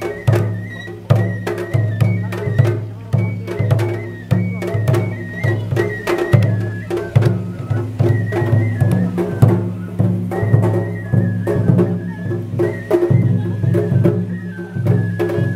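Japanese festival hayashi music: taiko drums beaten in a steady, driving rhythm while a bamboo flute plays a high melody over them.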